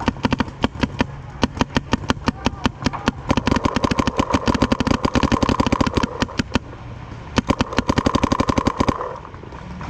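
Paintball markers firing rapid strings of shots, some close and some further off, with a steady mechanical whir underneath. The firing thins out near the end.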